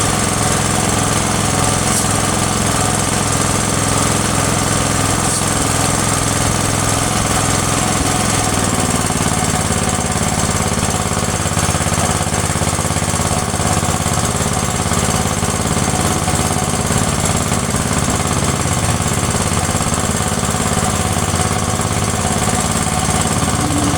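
Car-wash pressure-washer machine running steadily with a hard, rattly mechanical note; its pitch drops slightly about eight seconds in.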